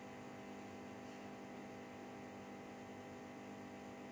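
Steady low electrical hum with a faint hiss underneath; no other distinct sound.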